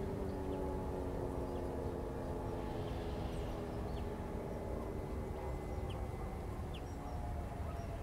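Several distant E57 electromechanical motor sirens sounding the fire-alarm test signal, their overlapping tones slowly falling in pitch as they wind down. Faint bird chirps come through above them.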